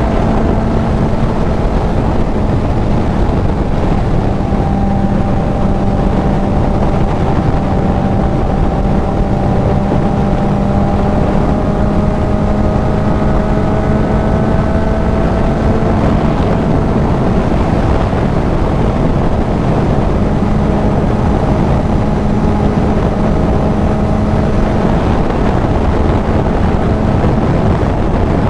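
Kawasaki Z900's inline-four engine through a CS Racing full exhaust, running at a steady cruise with only slight changes in pitch. Wind rushes over the helmet-mounted microphone.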